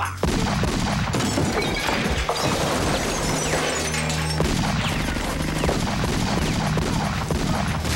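Handgun gunfire in a rapid fusillade, many sharp shots in quick succession, over dramatic background music.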